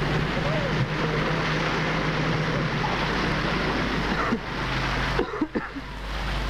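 City street ambience: a steady rushing wash of traffic and splashing fountain water, with a low hum. About five seconds in the sound briefly dips, with a few crackles, then carries on.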